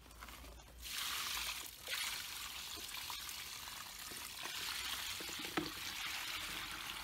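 Water pouring steadily out of a tipped plastic storage box onto the ground. The pour starts about a second in and breaks off briefly just before two seconds.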